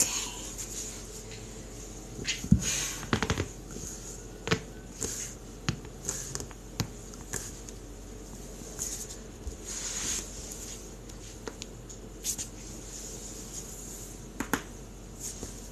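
Joints cracking in a self-adjustment: a string of sharp pops and clicks, with a quick cluster of several about three seconds in and single ones scattered after, amid soft rustling.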